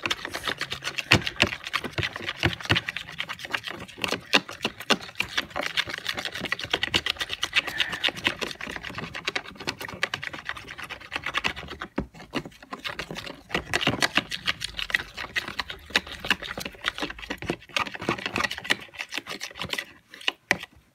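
A utensil stirring a wet white-glue and paint mixture in a bowl, a continuous run of quick scraping and clicking strokes, with short pauses about twelve seconds in and near the end.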